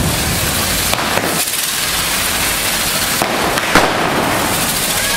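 Hand-held spark-spraying fireworks on poles, carretilles, hissing steadily as they burn, with sharp bangs about a second in and again near four seconds.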